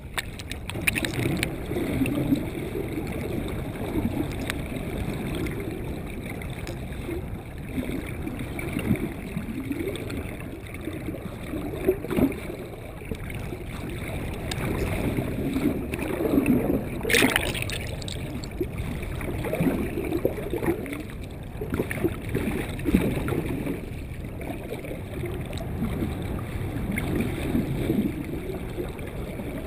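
Water rushing and gurgling around an underwater action camera's waterproof housing as a small sailboat moves through the water, muffled and swelling and fading. A short sharp sound about 17 seconds in.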